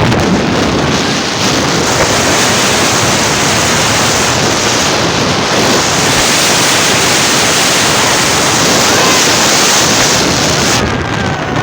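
Loud, steady rushing noise with no pitch or rhythm to it.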